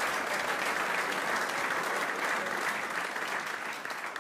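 Studio audience applauding steadily, the clapping thinning and fading near the end.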